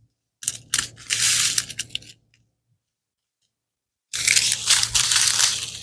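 Plastic packaging crinkling and rustling as it is handled, in two stretches of about a second and a half each with a silent gap between.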